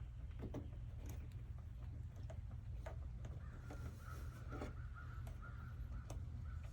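Faint scattered clicks and taps of wire connectors being handled and pushed onto the terminals of an air conditioner's new run capacitor, over a steady low rumble. About halfway through, a bird starts calling repeatedly in the background.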